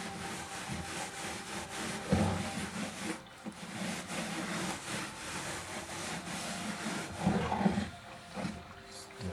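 Hand work on a chainsaw: rubbing and scraping at the housing, with a sharp knock about two seconds in and a few more knocks near the end.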